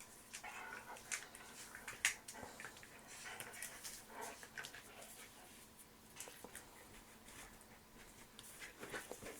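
Dog making a few soft whimpers amid scattered light clicks and scuffles, all faint.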